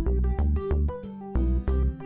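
Background music with a steady beat, bass and keyboard notes.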